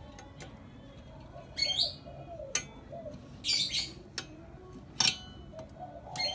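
Birds calling: a dove cooing over and over, and a small bird giving short bursts of high chirps. Two sharp knocks, the loudest sounds, come about two and a half and five seconds in.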